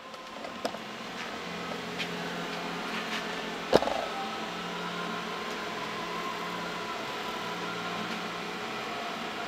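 Okuma Multus B300 CNC lathe powered up and humming steadily, with a few light clicks and one sharp knock a little under four seconds in.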